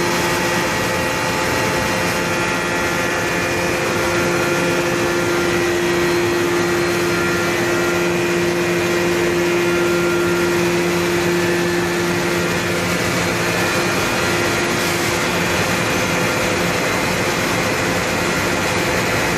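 Leather buffing and dedusting machine running with its dust-extraction blower: a steady mechanical whir and hiss with a few humming tones, two of which fade out a little past the middle.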